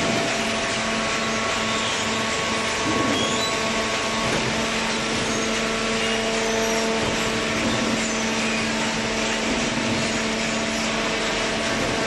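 Horizontal hydraulic cardboard baler and its feed conveyor running: a steady mechanical hum with several constant whining tones over a noisy rush.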